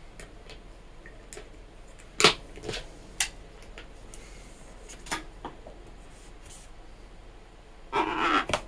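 Latex balloons being handled: a few sharp clicks and taps, then near the end a short burst of rubbing squeak as a felt-tip marker is drawn across the balloon.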